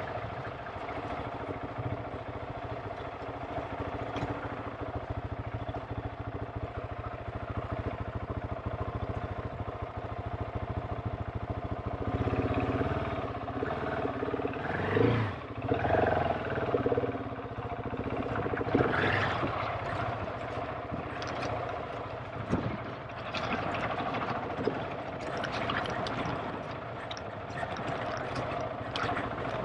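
GasGas ES700 enduro bike's single-cylinder four-stroke engine running while ridden off-road: steady at first, then revving harder from about halfway, with sharp knocks and clatter over rough ground.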